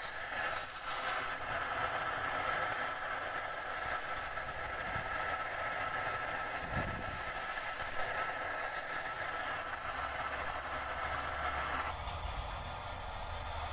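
Gas torch flame hissing steadily as it melts bullion in a clay crucible. About twelve seconds in the hiss becomes quieter and a low rumble comes in.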